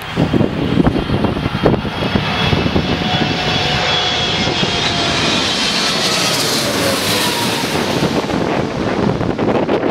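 Jet engines of an Emirates Boeing 777 passing close by on approach to land, their whine falling in pitch as the airliner goes past. Gusts of wind buffet the microphone.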